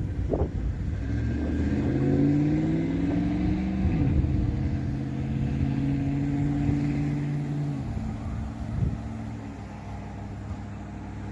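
A motor vehicle's engine speeding up, its pitch climbing over a few seconds, then holding a steady pitch before it stops about eight seconds in.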